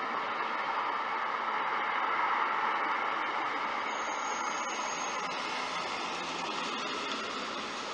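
Steady hiss-like street noise picked up by a home security camera's microphone, with a car driving past on the street. A faint high whine sounds for about a second midway.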